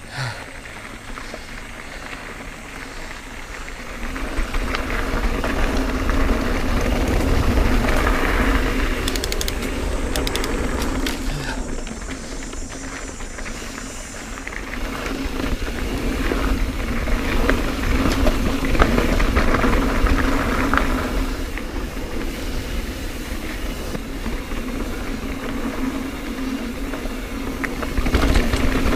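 Mountain bike rolling fast down a dirt singletrack: tyre rumble, rattling of the bike over roots and rocks, and wind rushing over the helmet or handlebar microphone, which grows louder as the bike picks up speed.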